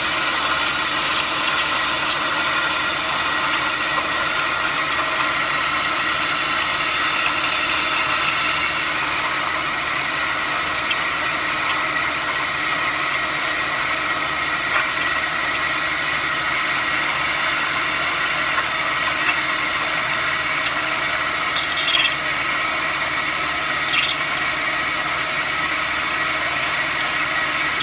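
Steady mechanical running noise carrying a continuous high whistling tone, with a few brief high chirps, two of them a few seconds before the end. This is the unidentified bird-like sound, which the uploader doubts is really a bird.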